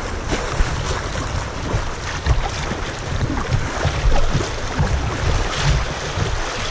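Fast, choppy creek water rushing and splashing against a kayak's plastic bow, with wind rumbling on the microphone.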